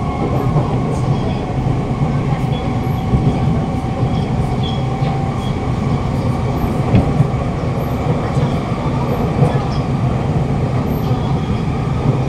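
Inside a Siemens C651 metro car running at speed: a steady rumble of wheels on rail with a loud hum from the traction motor beneath the car.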